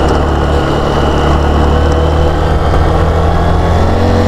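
Motorcycle engine running steadily while riding, heard from the rider's seat, with a hiss of wind and road noise.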